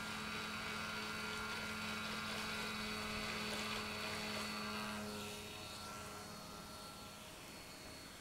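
Radio-controlled floatplane biplane's motor and propeller running during its takeoff run across the water, a steady buzzing drone that fades after about five seconds as the plane moves away and climbs.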